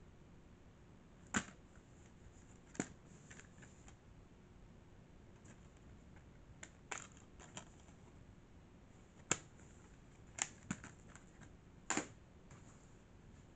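Plastic DVD cases being handled and turned over: scattered sharp clicks and light taps, about nine spread irregularly over a faint hiss.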